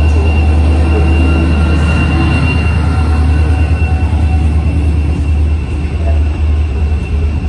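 DSB ME-class diesel-electric locomotive passing close by at low speed, its two-stroke EMD V16 diesel giving a heavy low rumble with a thin steady whine above it that fades about four seconds in. Double-deck coaches then roll past behind it.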